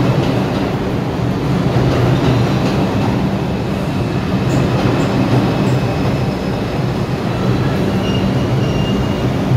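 R142 subway train running along the platform and braking to a stop, a steady rumble of wheels on rail with a faint high squeal near the end.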